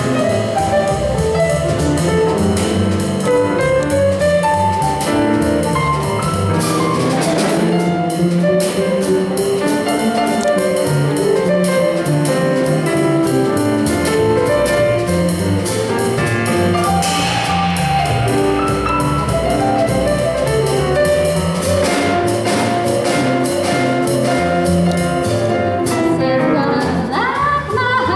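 Jazz trio of grand piano, upright double bass and drum kit playing an instrumental passage, with cymbal strokes over the piano and bass. A woman's voice comes in singing near the end.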